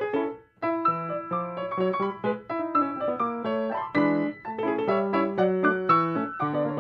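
Piano music: a lively run of separate notes, breaking off briefly about half a second in and then carrying on.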